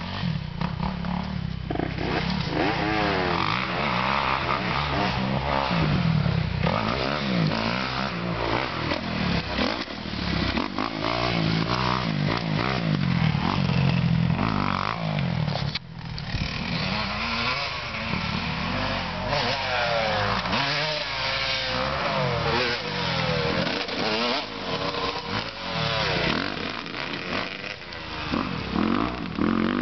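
Motocross dirt bikes, a Yamaha YZ125 and a Kawasaki KX250, riding a dirt track: the engine revs rise and fall over and over as the throttle is worked through the jumps and turns, with a brief drop in sound about sixteen seconds in.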